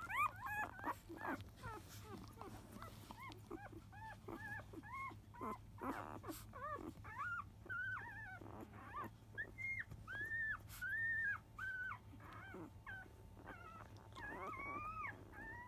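Newborn Labrador Retriever puppies, five days old, squeaking and whimpering: a run of short squeaks that rise and fall, several a second, with a few longer cries past the middle. A steady low hum runs underneath.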